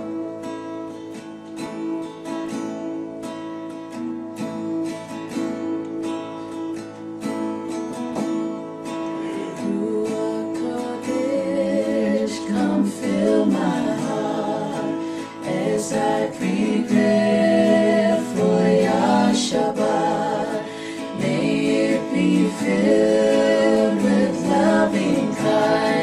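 Worship song on acoustic guitar: a plucked guitar introduction, then a singing voice comes in about halfway through and the music grows fuller and louder.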